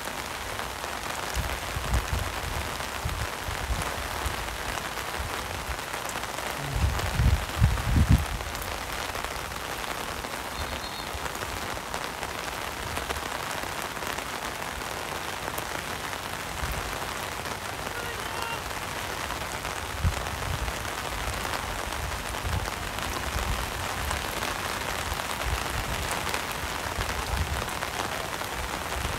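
Steady rain falling, an even hiss throughout, with a cluster of low thumps on the microphone about seven to eight seconds in.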